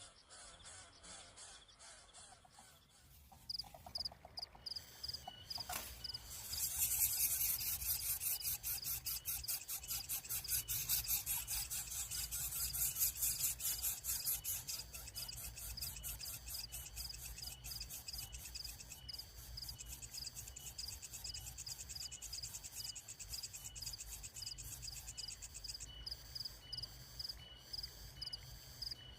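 Insects chirping in fast, even, repeated pulses, with a high buzzing hiss that swells about six seconds in and eases off after about fifteen seconds.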